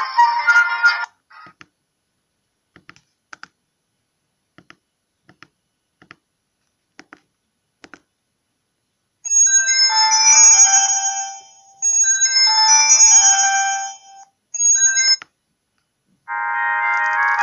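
A Myria Senior MY9018 feature phone's speaker playing ringtone and message-tone previews, electronic melodies that cut off as each new tone is selected. A ringtone stops about a second in, followed by a string of faint key clicks. Then several short tone melodies play in turn, and another starts near the end.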